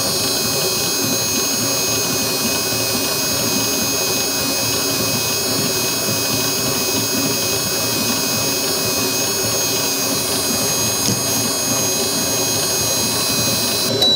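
Vevor 7.4-quart stand mixer running steadily with its stainless steel paddle, creaming butter with white and brown sugar: an even motor whine that stops abruptly near the end.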